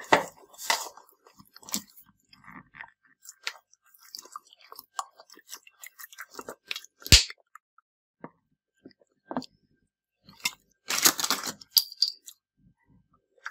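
A bare hand squeezing and working a crumbly, oily mixture of butter, sugar and eggs in a glazed clay dish: irregular squelching and crackling. A single sharp knock comes about seven seconds in, and a denser rush of crackling a little before the end.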